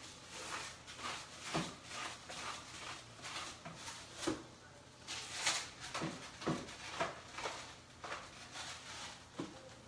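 Kitchen utensils working at a skillet of sautéed chicken filling as it is seasoned with salt and pepper: an irregular series of clicks, knocks and scrapes, with a brief hissing scrape about halfway through.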